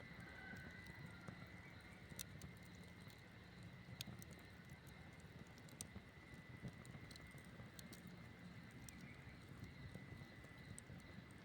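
Campfire burning quietly: a low steady hiss with sparse sharp crackles and pops from the burning wood every second or two.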